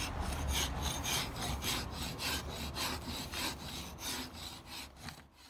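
Steel hand scraper drawn repeatedly along a wooden spar, scraping off the old finish in quick rasping strokes, about three a second. The strokes weaken toward the end and stop abruptly.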